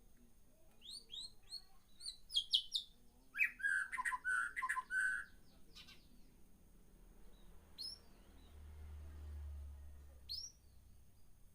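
Caged birds chirping: a quick run of short, high chirps, then a louder burst of lower, choppy notes, then two single chirps later on.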